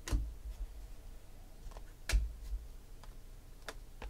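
2016 Panini Select football cards clicking against each other as a stack is flipped through by hand, one card at a time. There are a few separate sharp clicks, the loudest about two seconds in.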